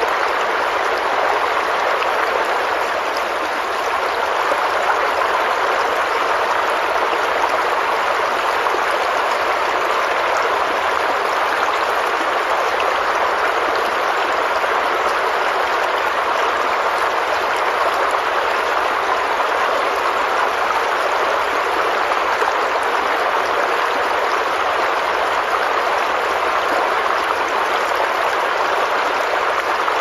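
Small rocky stream running steadily down a short cascade over stones into a shallow pool: an even, continuous rush of splashing water.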